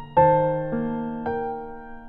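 Background music: slow, soft piano, three notes or chords struck about half a second apart, each left to ring and fade.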